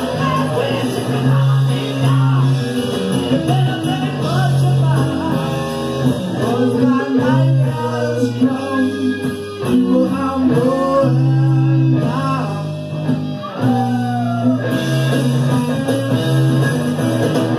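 Live rock band playing a blues-rock song: a singer over electric guitar, bass and drums, loud and a little raw, as heard from the mixing desk in a club on a cassette recording.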